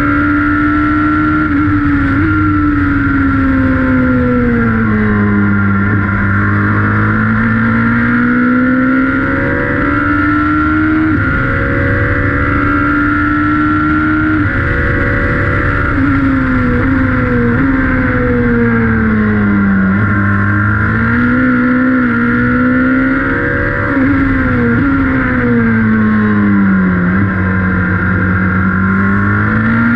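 Radical race car's engine heard from the cockpit at speed on track. Its pitch climbs over several seconds under acceleration and sinks when braking, with sudden steps in pitch at the gear changes, and a steady high whine runs beneath it.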